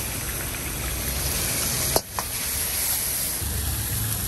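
Steady hiss of a high-flame gas wok burner with food sizzling in the wok. A short sharp click and a brief dip in loudness come about two seconds in.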